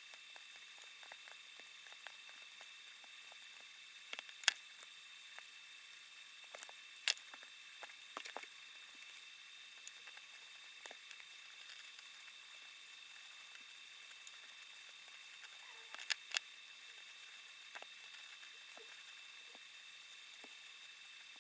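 Scattered light clicks and taps of small objects being handled, with a few sharper clicks about four seconds in, around seven to eight seconds, and a close pair about sixteen seconds in, over a steady faint hiss.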